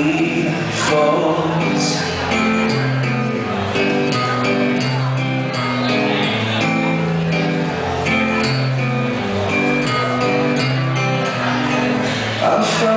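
Acoustic guitar strummed steadily, playing chords through an instrumental passage of a live solo song.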